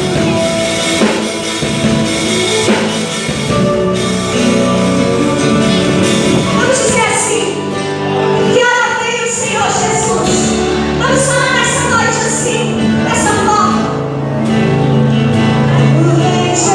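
Live gospel worship band playing: drum kit, bass, guitars and keyboard, with a female lead vocal coming in about six and a half seconds in.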